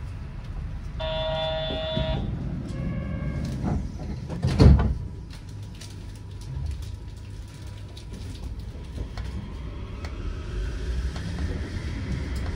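Yurikamome rubber-tyred automated guideway train running, heard from inside the carriage as a steady low rumble. A short electronic tone sounds about a second in, and a loud, brief rush of noise comes about four and a half seconds in.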